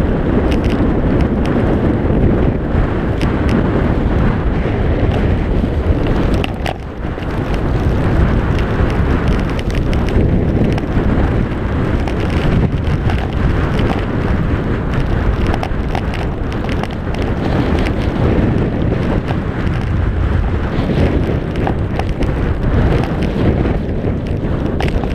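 Wind buffeting a GoPro Hero 3 microphone at skiing speed, mixed with the rush and chatter of skis carving over hard-packed snow. The noise dips briefly about seven seconds in.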